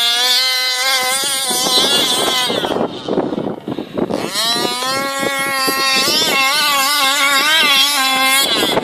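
Small 29cc two-stroke engine of a petrol 1/5-scale RC buggy running at high revs, its pitch sweeping up and down as the car passes and turns. About three seconds in it drops away for roughly a second, then revs back up and holds high.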